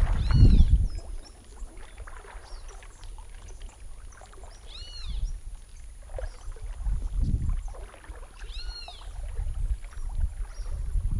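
Low rumbling water and handling noise, loudest near the start, with a bird's short arched call repeating about every four seconds.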